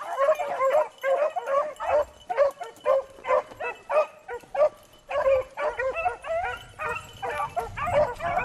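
A pack of beagles baying as they run a rabbit's track, many short overlapping bawls and chops. The calls thin out briefly about five seconds in, then pick up again.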